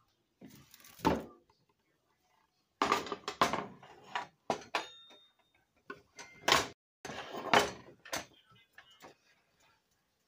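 Kitchen handling noises: several irregular knocks and rustles, such as a plastic tub and utensils moved about on a wooden cutting board, with quiet gaps between them.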